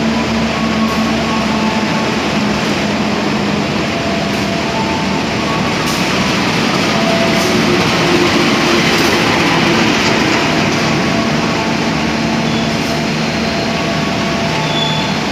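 Passenger train rolling into a station: a steady rumble of wheels on the rails that swells a little in the middle, with a few short, faint tones.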